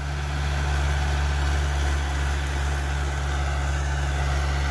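Mahindra B275 DI tractor's three-cylinder diesel engine running steadily under load as it drives a rotavator tilling the soil, an even low drone. The engine was rebuilt only about ten hours of running ago.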